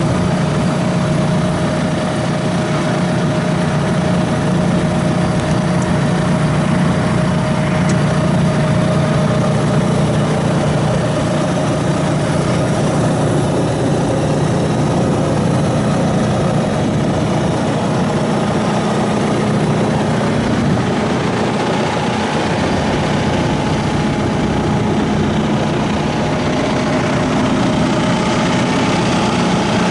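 A John Deere 5115M tractor's four-cylinder diesel engine idling steadily.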